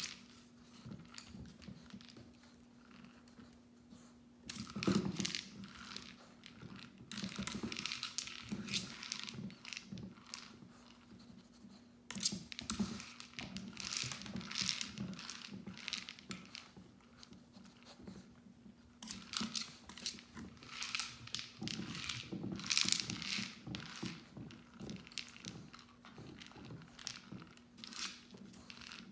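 Dry kibble rattling and clattering inside a plastic Bob-A-Lot wobbling treat dispenser as a puppy noses and paws it across a hardwood floor, in irregular bouts of rattling with quieter pauses between. A faint steady low hum runs underneath.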